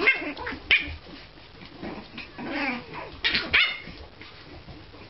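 French bulldog puppies yipping and barking in short, sharp bursts, about six in all, with a longer whining yelp about two and a half seconds in. The calls die down near the end.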